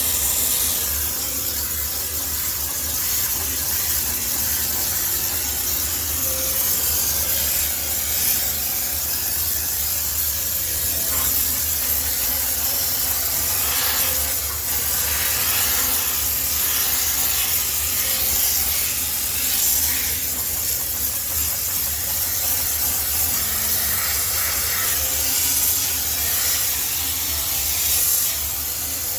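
High-pressure steam cleaner spraying steam in a steady, continuous hiss, with a low hum running beneath it.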